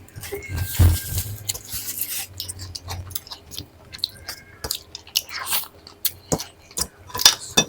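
A person chewing and crunching a mouthful of food, with many short, sharp clicks and crunches.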